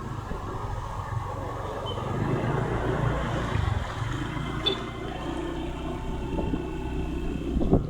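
An engine running steadily, with a rushing noise over it.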